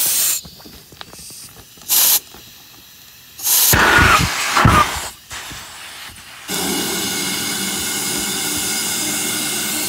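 Compressed air hissing from an air compressor's blow-gun nozzle at an inflatable pool's air valve: two short bursts, then loud handling noise of the funnel and nozzle at the valve, and from about six and a half seconds a steady hiss with a faint hum.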